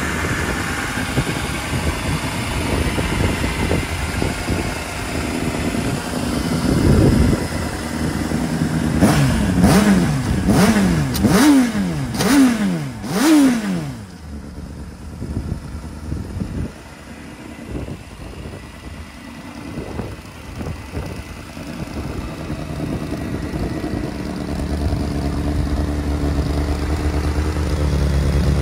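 2007 Honda CBR600RR's inline-four engine running through an Arrow aftermarket exhaust, blipped in a quick series of about five throttle revs about a third of the way in, each rising and falling sharply in pitch, then dropping back to a quieter idle.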